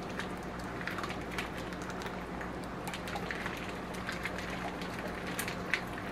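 Plastic package of sauced ribs being handled and pulled open: faint scattered crinkles and ticks over a steady low hum.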